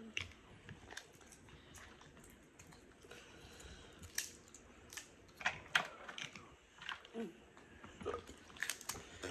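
Boiled crawfish shells cracking and snapping as they are peeled by hand, mixed with chewing. A few sharp cracks about five and a half seconds in are the loudest.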